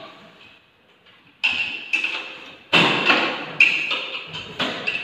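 Several sharp knocks, each with a short ringing tail, as a split-type aircon indoor unit is lifted overhead and worked into place. The loudest three come about one and a half, three and three and a half seconds in.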